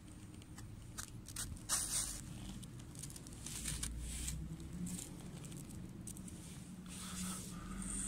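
A small firework's fuse being lit with a flame: scattered short crackles and hissing rustles, the loudest about two seconds in, over a low steady hum.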